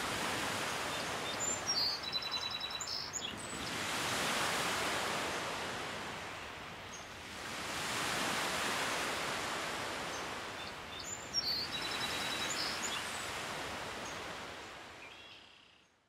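Lake Superior waves washing on the shore, swelling and easing about every four seconds. A small songbird sings a short, quick trill twice, near the start and again later. The sound fades out at the end.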